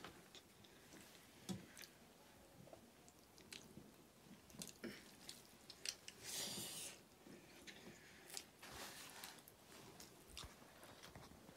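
Faint close-up eating sounds: chewing and soft smacks of mouths on meat, with small clicks as fingers pick food from metal plates, and one longer rustle about six seconds in.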